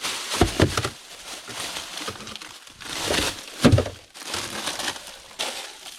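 A plastic compost bag rustling and crinkling as it is handled, with a few dull thumps.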